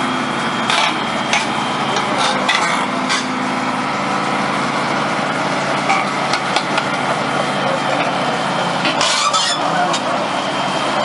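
Excavator engine running steadily, with scattered clanks and knocks.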